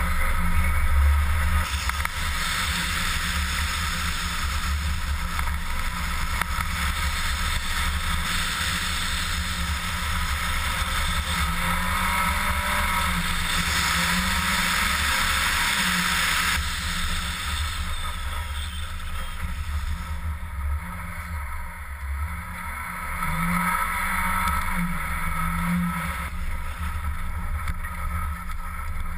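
Mitsubishi Lancer Ralliart driving on a snow-covered ice road, heard from a camera mounted on the outside of the car: a steady rush of wind and tyre noise over a low engine drone. The engine note rises and falls a few times, around the middle and near the end.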